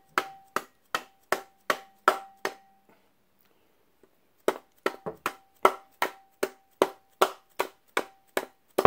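Mallet blows driving a gear out of a cast Model T transmission drum, each strike followed by a short metallic ring. The blows come steadily at about two and a half a second, pause for a second and a half, start again, and end with one louder blow. The gear is stuck because its worn teeth have rolled over and grown bigger than the bushing.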